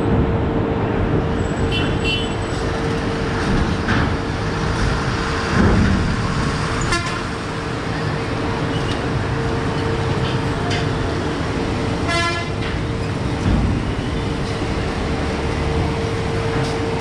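A coach's engine runs as it drives slowly onto a river ferry's steel deck, over a steady rumble of engines and a constant droning tone. Short vehicle horn honks sound now and then, the clearest about twelve seconds in.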